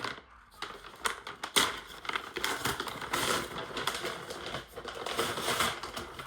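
Packaging being torn open and handled: dense, irregular crinkling and crackling, with a sharp snap about a second and a half in.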